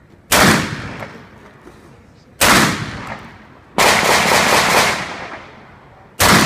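M16-type rifle firing outdoors: a single shot right away, another about two seconds later, then a rapid burst of several rounds near the middle, and one more shot near the end, each followed by a short echo.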